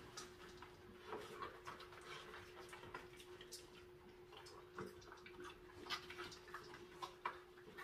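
Small dogs eating dry kibble from metal bowls: faint, irregular clicks and crunches, with a faint steady hum underneath.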